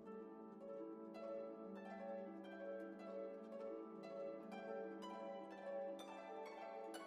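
Soft background music: a flowing melody of plucked string notes, harp-like.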